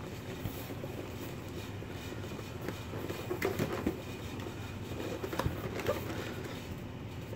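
Cardboard box handled and turned over in the hands: faint rubbing and a few light taps over a steady low background noise.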